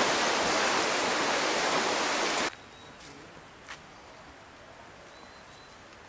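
Steady hiss of rushing water that cuts off abruptly about two and a half seconds in, leaving a quiet open-air background with a single faint click.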